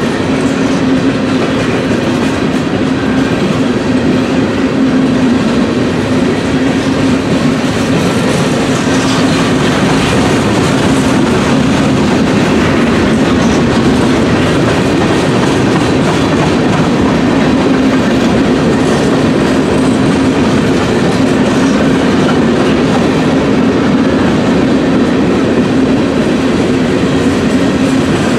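Freight train cars rolling past close by: steel wheels on the rails make a steady, loud rumble with a constant low hum running through it.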